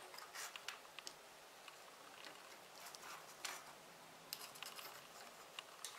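Faint, scattered small clicks and taps of tiny electronic parts handled by hand: a small circuit board and its wire lead knocking against a plastic case as they are fitted.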